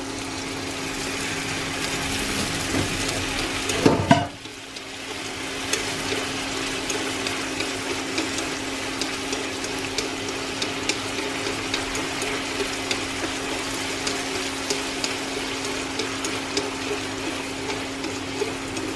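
Wheat-gluten (mì căn) strips braising in soy-based sauce in a hot pan, sizzling and bubbling as a utensil stirs them, with light clicks against the pan. The sizzle builds to a loud peak about four seconds in, drops off suddenly, and then settles back to a steady sizzle as the added water cooks down.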